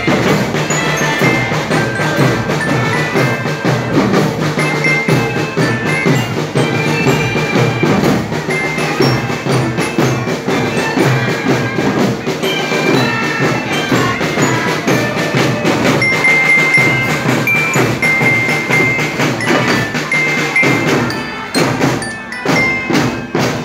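A children's drum band playing: a marching glockenspiel carries the melody over snare and bass drums. Near the end the playing thins out to a few separate strikes.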